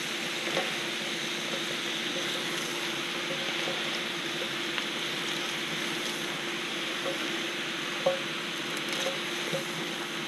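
Cabbage sizzling steadily in a hot pan while it is turned over with a plastic spatula, with a few light knocks of the spatula against the pan, the clearest near the end.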